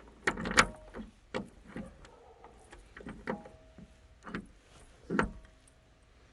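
Metal door latch and lock of a Doosan wheeled excavator's cab being worked with a key: about seven sharp clicks and knocks, two of them with a brief metallic ring.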